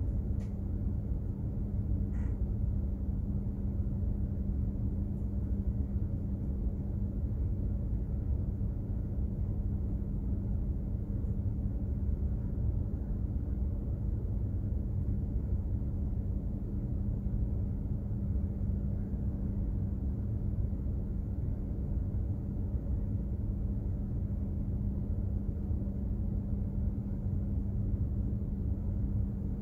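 Container ship under way: a steady low rumble of its engine and machinery with a constant hum.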